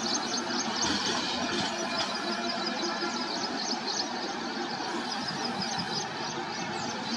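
LHB passenger coaches rolling past on a curved track: a steady rumble and rattle of wheels on rail, with rapid short high-pitched squeaks throughout.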